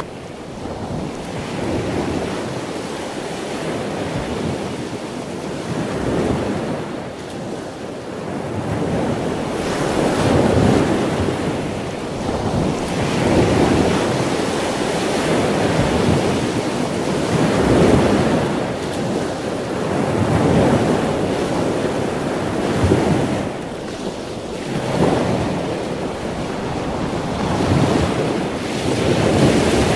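Ocean waves breaking and washing in, the surf swelling and falling every few seconds.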